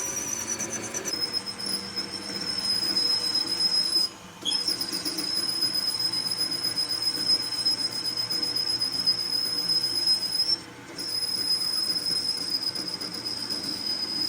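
Metal being cut on a machine tool, with a steady high-pitched squeal over rough cutting noise. The squeal breaks off abruptly twice for about half a second.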